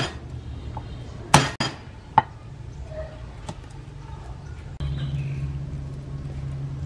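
Knife smashing and chopping garlic cloves on a thick wooden chopping block: a few sharp knocks in the first two seconds or so. About five seconds in, a steady low hum starts up.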